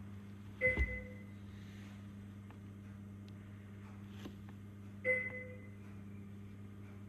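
Steady low hum with two sharp knocks, about four seconds apart, each followed by a short ringing tone that fades within half a second.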